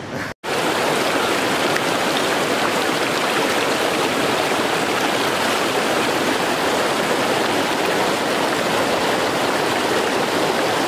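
Shallow mountain river rushing over rocks close to the microphone: a steady, loud wash of water, cut off for a split second just after the start.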